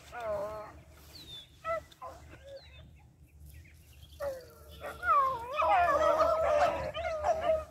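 A pack of rabbit-hunting dogs baying, several voices overlapping. There are a few scattered calls at first and a lull near the middle, then from about four seconds in the whole pack is in full cry, loud and dense: the dogs are running a rabbit.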